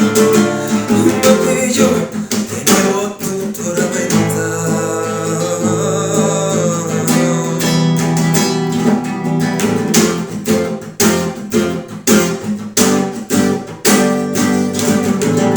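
Acoustic guitar strummed in a steady rhythm, the instrumental close of a song.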